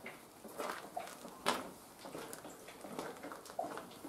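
Footsteps scuffing and crunching on a gritty concrete floor, irregular, with a sharper click about a second and a half in.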